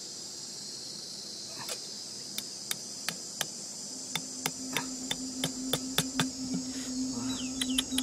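Sharp, irregular taps of a hatchet's back driving a thin metal pin into the ground, coming more often in the second half, over a steady high chirring of insects. A low steady hum joins about halfway through.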